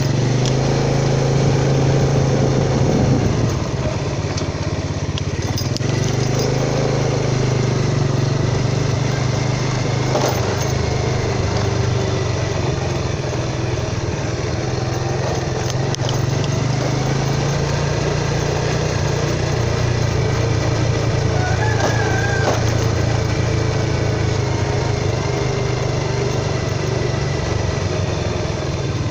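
A small engine running steadily, its low hum shifting slightly in pitch now and then.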